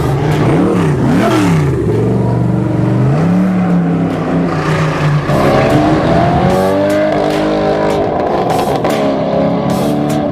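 Supercar engine revving: two quick blips up and down near the start, then a steadier note. About halfway through, engine notes climb in pitch as a car accelerates away.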